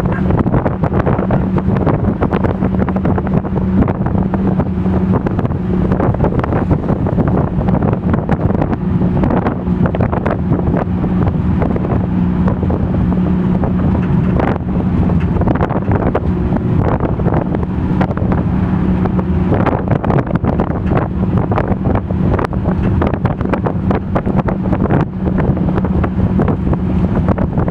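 A motor vehicle's engine running with a steady drone, heard from on board while it drives, with wind buffeting the microphone.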